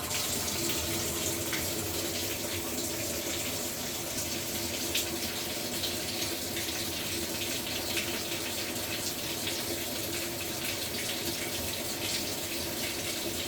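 Maytag MVWP575GW commercial top-load washer filling: water pouring steadily into the tub through the fill valve during its diagnostic-mode fill step, with a faint steady hum underneath.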